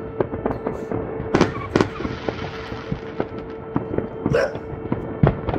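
New Year fireworks going off all around: irregular bangs and crackles, several a second, with louder reports about a second and a half in and near the end. A steady faint tone runs underneath.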